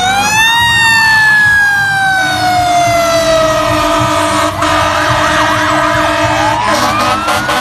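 Fire engine sirens as several engines pull out. One siren winds down in a long falling tone over the first few seconds while shorter siren sweeps overlap it. Another siren rises again near the end.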